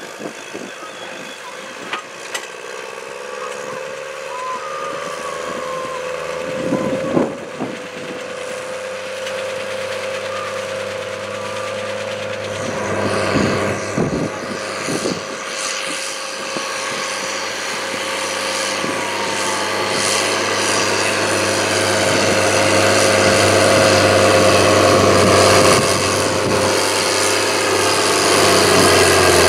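New Holland T7060 tractor's six-cylinder diesel engine working under load as it pulls a slurry tanker and soil injector across the field, growing steadily louder as it comes closer. A steady whine runs over the engine note, with a few thumps around the middle.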